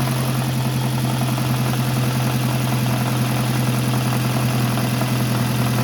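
Car engine idling steadily, with an even low hum and a fine regular pulsing.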